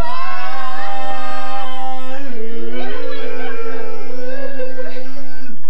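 A small group singing a cappella in harmony, loud and drawn out: one low note is held steady almost throughout while higher voices hold long notes and shift pitch about two and three seconds in.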